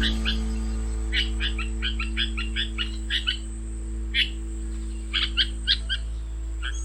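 Runs of short, high chirps from red-vented bulbuls, over a steady, sustained background music drone.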